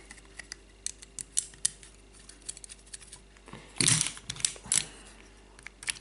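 Light metallic clicks and taps as a screw and screwdriver are worked against the steel case of a Yale night latch while the screw is being refitted, with a louder clatter of metal about four seconds in.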